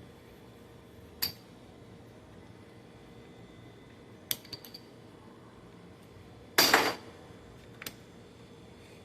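Steel parts of a Chevrolet Cobalt manual gearbox handled during teardown, clinking metal on metal: a sharp clink about a second in, a few quick clinks around four seconds, a louder brief metal clatter near seven seconds, and one last small click soon after.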